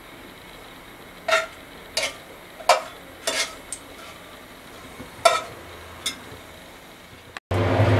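A metal spatula clinking and scraping against an aluminium pan while dried red chillies are stirred in hot mustard oil: about seven short clinks, each with a brief ring, over a faint steady frying hiss. Near the end the sound cuts abruptly to a louder steady background.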